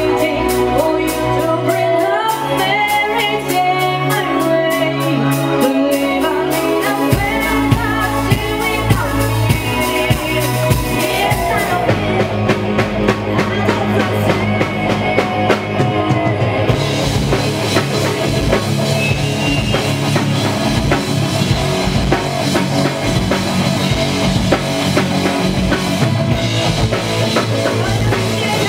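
Folk metal band playing live: electric guitars, keyboards and drum kit with a woman singing. The music is lighter at first and turns fuller and heavier about seven seconds in.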